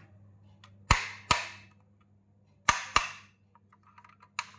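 Sharp clicks of a diecast metal model Land Rover Defender 110's hinged parts being worked shut, five in all, the first four in two quick pairs.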